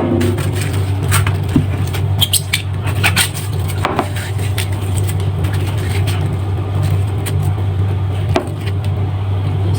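Steady low hum with scattered clicks and light knocks, like kitchen items being handled.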